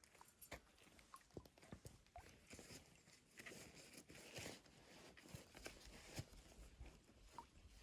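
Near silence with faint, irregular crunches and clicks of footsteps on a trail.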